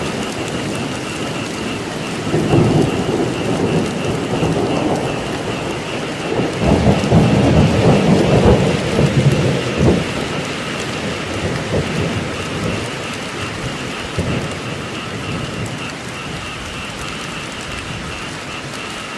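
Steady heavy rain with thunder: a low roll of thunder about two seconds in, then a louder, longer rumble from about six to ten seconds in that dies away.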